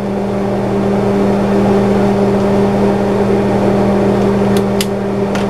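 A loud, steady machine hum, like a fan or motor running, made of a few low droning tones. Near the end, two sharp clicks about a quarter second apart come from a hand wire stripper being worked on the wire.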